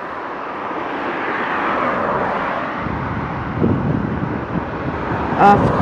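Traffic noise from a vehicle going by, swelling over the first two seconds and then holding steady, with a low rumble added from about three seconds in.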